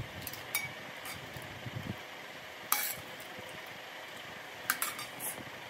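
Stainless-steel ladle clinking against a steel bowl and pot as curry is served: a handful of light metal clinks, the sharpest about three seconds in, over a steady hiss.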